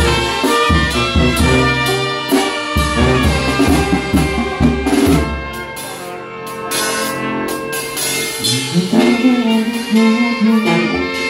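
A Sinaloan banda plays live: trumpets carry the melody over a sousaphone bass line and snare and tom drums. The low bass drops out for a couple of seconds past the middle and then comes back.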